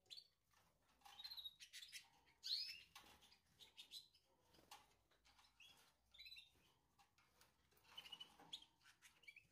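Faint, short canary chirps, a few at a time at irregular intervals, the loudest about two and a half seconds in.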